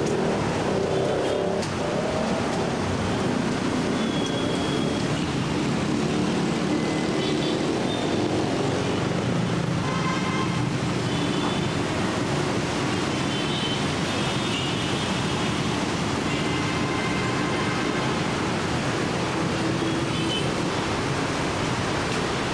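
Steady noise of heavy, slow city traffic, cars and many motorcycles, with a few brief faint high tones now and then.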